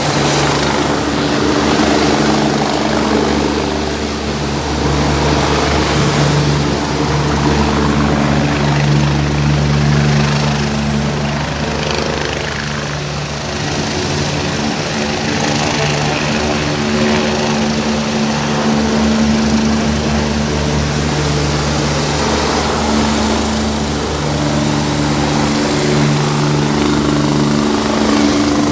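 Helicopter on its helipad being warmed up on the ground, its engine and rotor running with a steady drone. Motorbikes and cars pass close by on the road.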